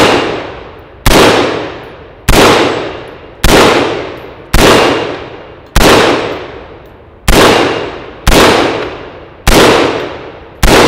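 Troy XM177E2 5.56 mm carbine firing single aimed shots at a steel target, about one shot a second, ten shots in all. Each sharp report tails off over about a second, mixed with the ring of rounds hitting the steel.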